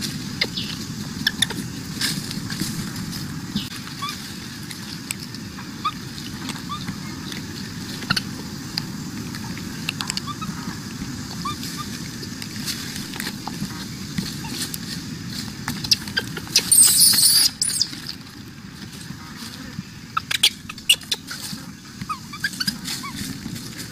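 Macaques calling: scattered short squeaks and clicks over a steady low rumble, with one loud, high-pitched call lasting about a second about two-thirds of the way through.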